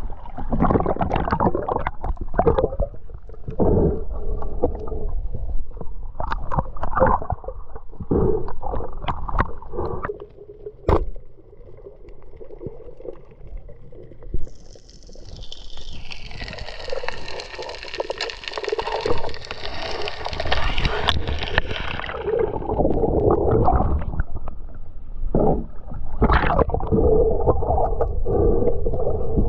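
Water sloshing and gurgling around an action camera in the sea, muffled once it goes underwater, in irregular rumbling surges. About halfway through, a higher hiss with ringing tones comes in for several seconds and then fades.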